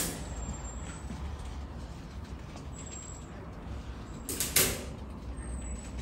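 Steady low hum, with a sharp click at the start and two quick sharp clicks or rustles about four and a half seconds in.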